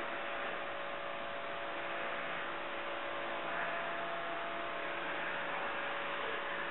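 Pressure washer spraying water onto a car's body to rinse off soap suds: a steady hiss of spray with a steady hum underneath.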